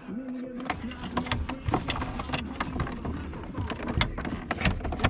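Irregular clicks and knocks of hard plastic dashboard trim and a screwdriver being worked as a Jeep's dash is taken apart, over a low rumble that comes in about a second in.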